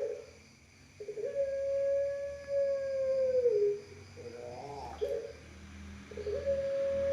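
Puter pelung, a long-voiced variety of barbary dove, cooing: one long held coo that dips in pitch at its end, a few short broken notes, then a second long coo starting near the end.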